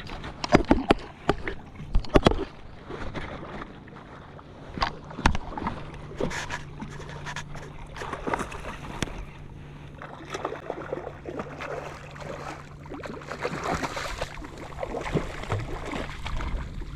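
Water splashing, with sharp knocks and clicks on a fishing kayak while a hooked redfish is fought alongside. The knocks are loudest in the first two seconds and again about five seconds in, over a faint low hum.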